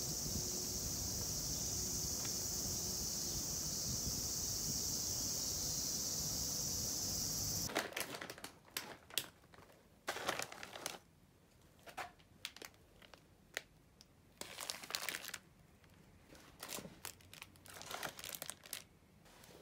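A steady high-pitched buzz of cicadas in trees, cutting off about eight seconds in. Then plastic snack-bag and food packaging crinkles in short, irregular bursts as the packages are set down and arranged on a table.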